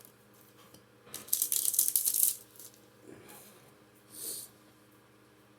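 Foil Pokémon booster pack wrapper crinkling sharply for about a second, followed near the end by a shorter, softer rustle.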